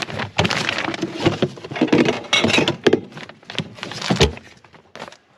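Portable camping fridge being opened and a glass beer bottle taken out: a busy run of clicks, knocks and rattling bottles, with a heavier thump about four seconds in.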